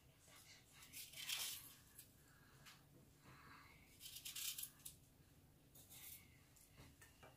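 Faint scraping of a small kitchen knife cutting through pieces of peeled apple held in the hand. There are a few short cuts, the clearest about a second in and again past the middle.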